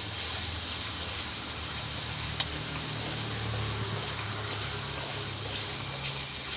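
Ginger and galangal spice paste sizzling in hot oil in a pan, a steady hiss with a low hum beneath it and a single sharp click a couple of seconds in.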